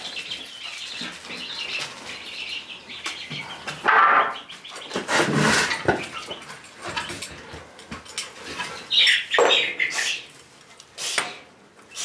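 Young chicks peeping, mixed with a few sharp knocks and clatters as a metal latch is worked on a wooden door frame.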